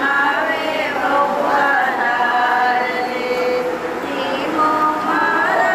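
Voices singing, holding long notes that slide up and down in pitch.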